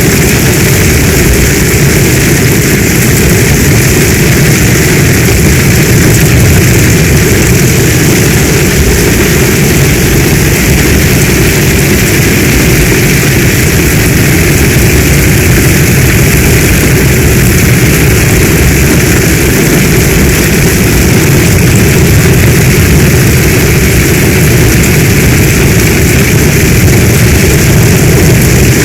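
Heavy storm rain falling steadily: a loud, even rush with a deep low rumble underneath and no breaks or single drops standing out.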